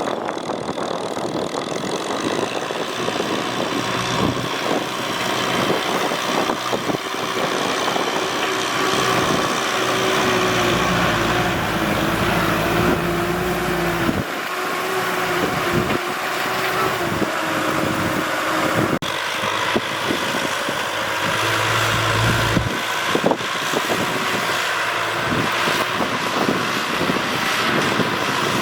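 Tractor engine running steadily while ploughing a field, with a deeper engine note that comes up for a few seconds in the middle and again briefly near the end.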